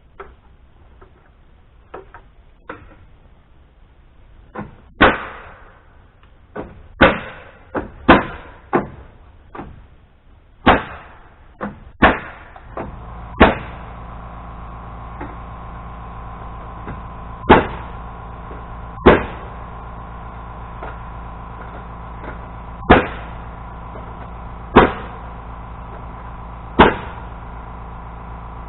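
Hammer blows driving nails into framing lumber: a quick irregular run of strikes, then single blows one to three seconds apart. About halfway through, a steady motor hum starts underneath and keeps going.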